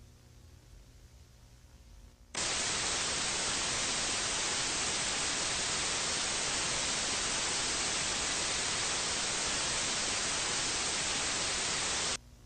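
Television static hiss, a steady even noise that starts suddenly a little over two seconds in and cuts off suddenly near the end. A faint low hum lies under the quiet stretches before and after.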